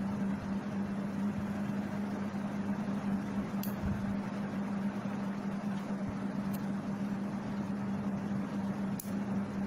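A steady low hum over even background noise, with a few faint clicks.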